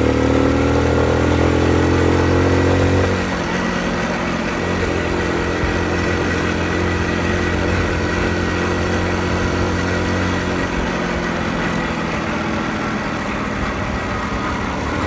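Honda Super Cub 50's small single-cylinder four-stroke engine running steadily while riding. About three seconds in, the engine note drops in pitch and gets a little quieter, then holds steady.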